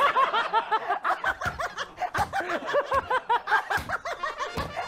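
Two men laughing hard together: a continuous run of rapid, pitched ha-ha bursts, with a few dull low thumps along the way.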